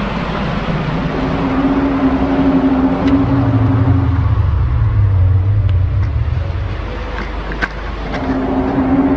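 A loud, low groaning drone of the 2011 'strange sounds' kind, heard over background noise. It holds one low tone, drops to a deeper pitch about four seconds in, and comes back to the first tone near the end.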